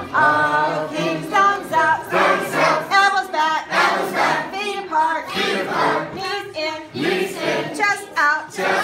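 A large group of children, with a few adults, singing together in chorus, voices only.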